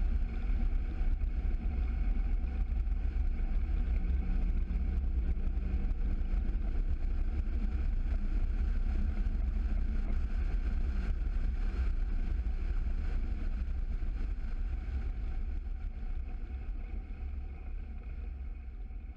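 Mercury 115 Pro XS outboard motor running steadily at speed on a RIB under way, with heavy wind buffeting on the microphone. The owner considers the engine under-propped on a 21-pitch prop. The sound fades out near the end.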